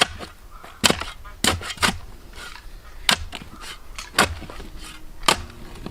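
Shovel digging into gravel: a series of about seven sharp, irregular scrapes and strikes of the steel blade on stones.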